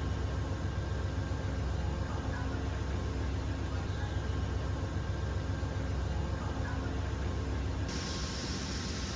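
Steady low rumble and hiss of a moving passenger train, heard from inside the car. The upper hiss changes abruptly near the end.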